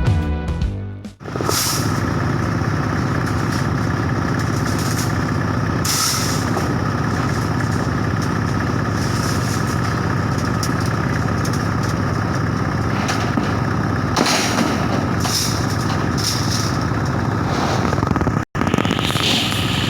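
Case 580K backhoe's diesel engine running steadily at idle, with a few brief hissing bursts.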